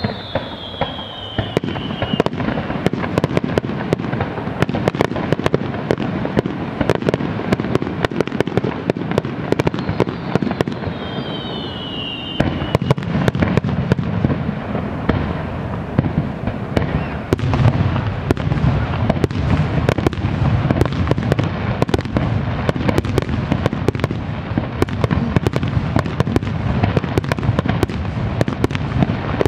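Aerial fireworks in a finale barrage: a dense, unbroken run of bursts, many reports a second. Two short falling whistles come through in the first half.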